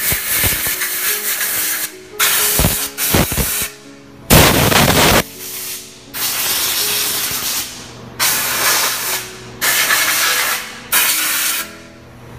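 Compressed-air blow gun blasting air into aluminum molds in about seven short hissing bursts of one to two seconds each, the loudest a little past four seconds in: the molds being blown clean before urethane is poured.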